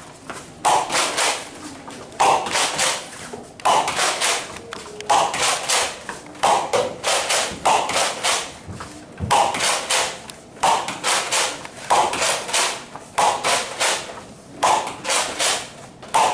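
A Nerf Rival foam-ball blaster being pumped and fired over and over, a quick cluster of sharp clacks about every second and a half, with foam balls thudding and bouncing.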